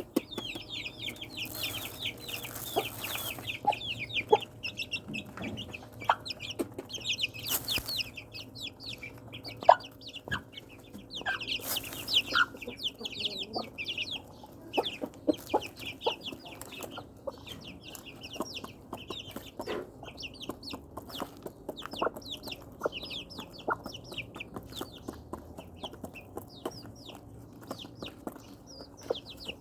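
A flock of chickens calling continuously: many quick, high chirping calls overlap without pause, with scattered sharp taps among them.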